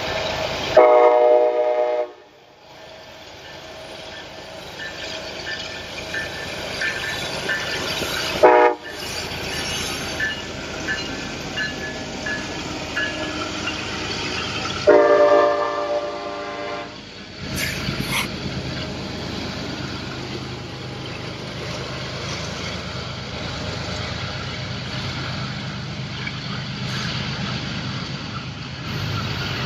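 Union Pacific diesel locomotives sounding their air horn three times: a blast about a second in, a short toot near eight seconds and a longer blast around fifteen seconds, with a level-crossing bell ringing. In the second half the double-stack container cars roll past with a steady rumble and wheel noise on the rails.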